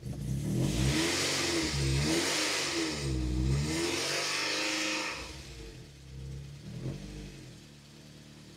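Freshly rebuilt 16-valve four-cylinder engine of a Mk2 VW Golf GTI, running just after its first start: engine speed rises and falls several times, then settles to a quieter, steady idle about five seconds in.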